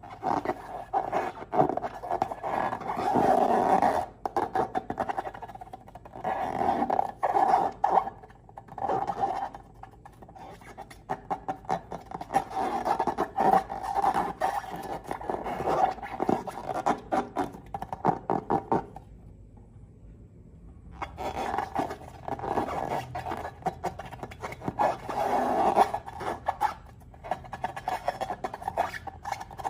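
Slime being squeezed and worked by hand, a dense run of sticky clicks and crackles that breaks off for about two seconds some two-thirds of the way through.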